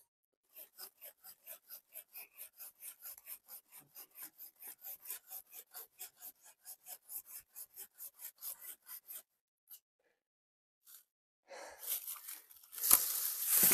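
Hand saw cutting through a tree branch in quick, even back-and-forth strokes, about four or five a second, stopping after about nine seconds. Near the end comes a louder crackling with one sharp crack.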